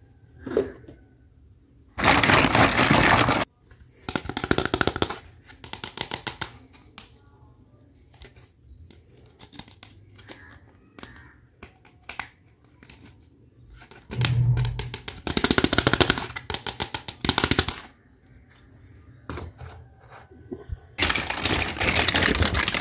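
Plastic toy kitchen pieces and their wrapping being handled: several bursts of fast crackling and rattling, the loudest about two seconds in, through the middle, and near the end.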